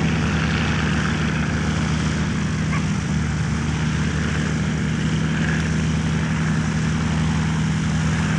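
Boeing-Stearman PT-17 Kaydet biplane in flight, its radial engine and propeller giving a steady, even drone.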